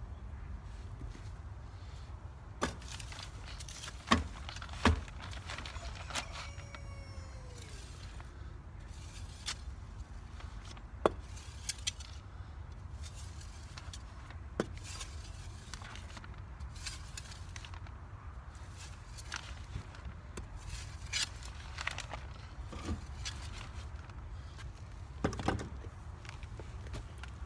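A hand garden tool chopping and scraping through loose soil, with scattered sharp knocks as it strikes the ground.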